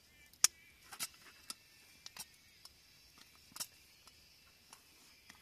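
Camping gear being handled: a padded case rustles and gives a series of short sharp clicks and taps, the loudest about half a second in.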